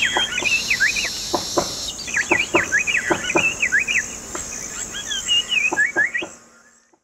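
Several birds calling in quick, sweeping chirps over a steady, high insect drone; the sound fades out near the end.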